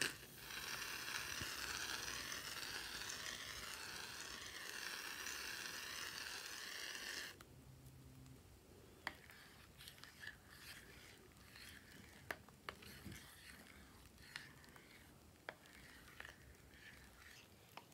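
Aerosol can of menthol shaving cream spraying foam with a steady hiss for about seven seconds, then cutting off suddenly. After that come soft scattered ticks and squishes of a plastic spatula stirring the foam into slime.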